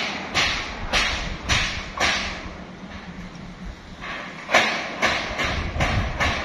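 Footsteps crunching on loose stony ground, about two steps a second, with a pause of about two seconds midway.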